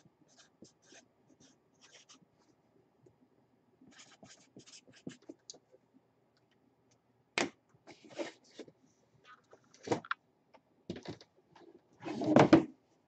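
Felt-tip marker scratching across a card in short strokes. It is followed by a few sharp knocks and rustling handling noises. The loudest is a rough burst of handling noise near the end.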